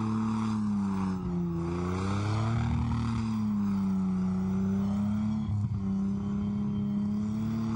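Scorpion light tank driving across rough sandy ground, its engine running with the pitch slowly rising and falling as the throttle changes.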